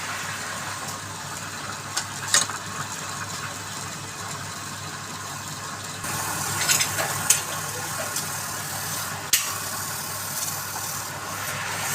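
Wood lathe running steadily, with the noise of a tool cutting the spinning wood and a few sharp clicks; it gets louder about six seconds in.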